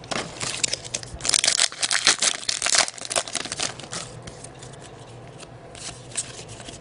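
A trading-card pack wrapper being torn open and crinkled, then the cards slid and handled; the tearing and crinkling is busiest in the first four seconds, then settles to quieter handling with a short rustle near the end.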